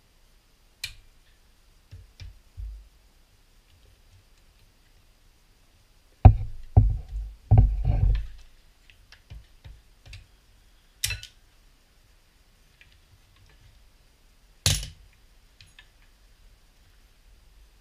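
Hand-tool work on an engine's auxiliary belt drive: locking pliers clicking on the belt tensioner and the auxiliary belt being worked off its pulleys. A few light clicks early, a burst of several heavy thumps about six to eight seconds in, then two sharp clicks, one around eleven seconds and one around fifteen.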